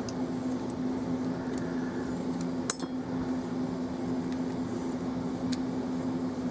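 Small metallic clicks and clinks of Abus 83/45 padlock parts being handled as a follower is pushed into the plug, with one sharper click about two and a half seconds in, over a steady low hum.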